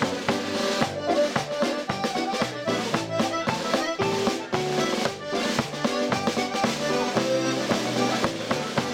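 Irish traditional dance tune played on accordions and banjo, with a drum tapping out a steady beat.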